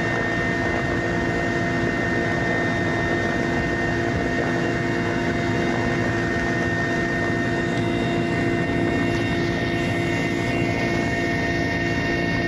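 Mil Mi-8 twin-turboshaft helicopter in flight, heard from on board: steady rotor and engine noise with a constant whine running through it.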